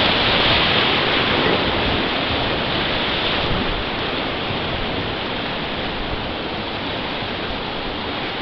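River whitewater rapids rushing and splashing close around a raft, a steady loud rush of water that eases a little after about three seconds.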